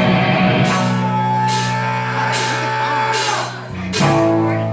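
Live rock band playing: electric guitar and bass holding sustained chords over drums, with a cymbal crash about once a second. The music dips briefly, then comes back in with a loud hit about four seconds in.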